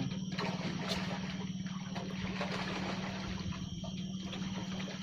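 Water splashing and churning over a steady low motor hum.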